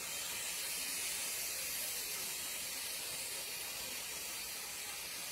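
Steam hissing steadily from the EIR 21 steam locomotive's cylinder drain cocks as the engine moves along the track.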